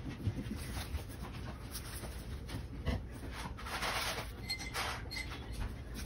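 Plastic-sleeved menu pages being turned and handled, with a swish about two seconds in and a longer one about four seconds in, over a low steady background hum.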